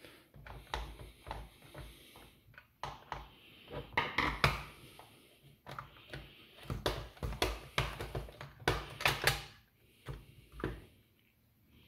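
Plastic shell of a Nerf Rival Roundhouse blaster being handled and pried apart: a run of irregular plastic clicks, clacks and knocks against the table as the rear shell half comes off.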